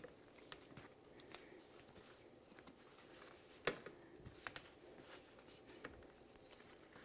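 Near silence with faint, scattered soft taps of wet eggplant slices being laid on a towel-lined metal sheet pan, and one sharper click about halfway through.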